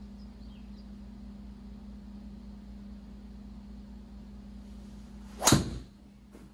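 A driver swing in an indoor golf simulator: a brief swish, then one loud, sharp crack about five and a half seconds in as the club strikes the ball and the ball slaps into the impact screen. A small click follows just under a second later, over a steady low hum from the room.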